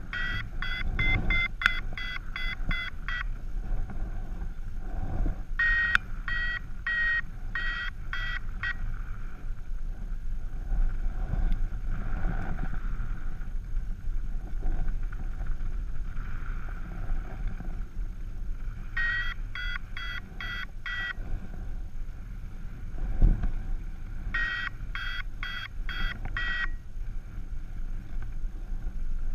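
Paragliding variometer sounding its climb tone: four runs of quick, evenly spaced high beeps, each a few seconds long, marking lift. Wind rushes steadily over the microphone, with a single sharp thump about three quarters of the way through.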